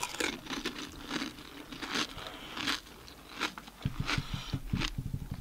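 Crisp pani puri shells being bitten and chewed close to the microphone: repeated crunches, with a quick run of sharper ones near the end.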